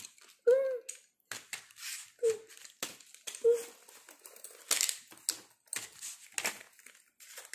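A zippered fabric bag being handled and opened: irregular rustling of the fabric and quick clicks from the zipper and its fittings.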